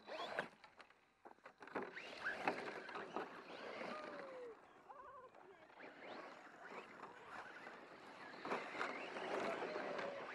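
Electric radio-controlled short-course truck driving over rough ground: a steady crunch of tyres on dirt, with the motor's whine falling in pitch a couple of times as it slows.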